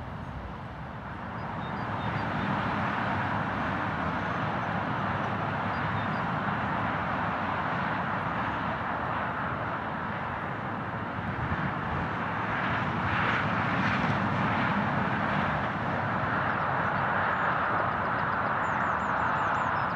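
Steady, distant roar of vehicle engines, growing slightly louder about two seconds in, with a few short high chirps near the end.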